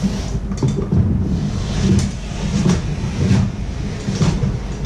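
A utility knife clipped to a tape measure scores down a standing sheet of drywall while work boots shuffle sideways on the subfloor. It comes as an uneven run of scrapes and low knocks.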